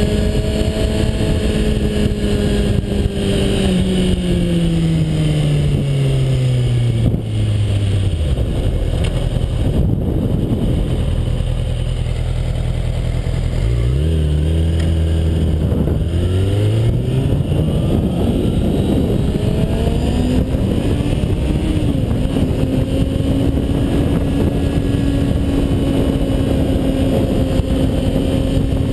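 Kawasaki Ninja ZX-6R inline-four engine, heard from on the motorcycle over steady wind rush. The engine note falls for the first several seconds as the bike slows and stays low for a few seconds. About halfway through it climbs again in steps as the bike accelerates, then holds a steady cruising note.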